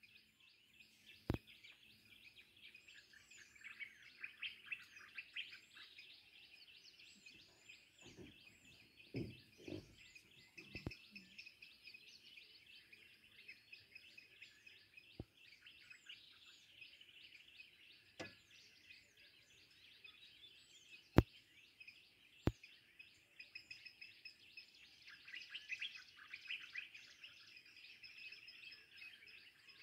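Faint, dense chorus of small birds chirping and twittering, with a few sharp clicks scattered through it, the loudest about two-thirds of the way in.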